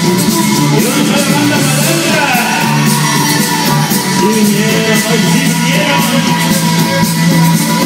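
Loud dance music with singing, played over a mobile DJ's sound system.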